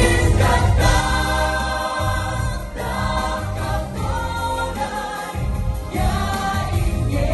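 Pop choir singing with instrumental accompaniment and a heavy, steady bass line.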